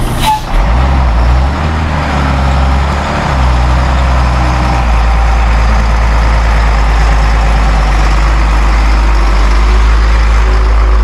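Heavy vehicle's engine running at low revs, a strong low rumble that shifts a few times in the first five seconds and then holds steady. A brief sharp noise comes right at the start.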